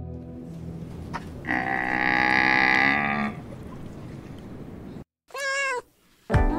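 Bactrian camel giving one long, steady bellowing call lasting about two seconds. Near the end, after a brief silence, comes a short cat meow.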